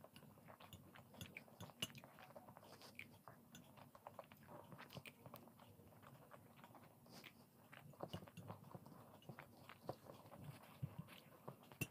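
Faint, close-miked chewing of soft, syrup-soaked boondi, with scattered small clicks of mouth noises and a spoon on a glass plate.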